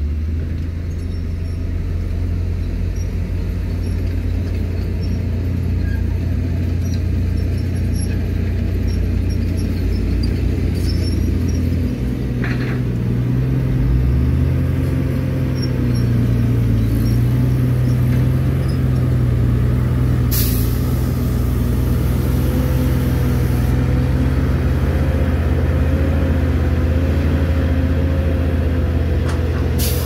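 Loaded heavy dump truck's diesel engine running as it drives over loose dirt, a steady low rumble that grows a little louder and steadier in pitch about halfway through as the truck comes close. A short sharp hiss about two-thirds of the way through.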